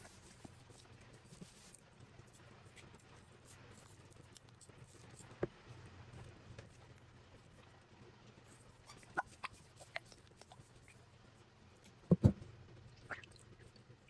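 Scattered light clicks and taps from hands handling plastic slime containers, with two sharp knocks near the end.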